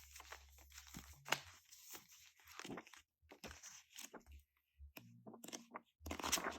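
Irregular crinkling and rustling of paper and plastic packaging being handled, with small scrapes and taps.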